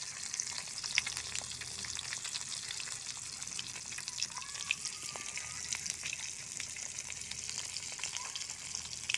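A whole marinated tilapia frying in hot oil in a kadai: a steady sizzle with scattered crackling pops.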